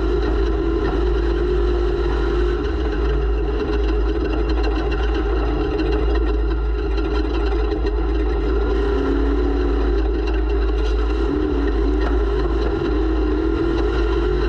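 Off-road race vehicle's engine running hard under way, its pitch wavering with throttle and dipping briefly about nine seconds in before climbing again, over a constant deep rumble, heard from an onboard camera.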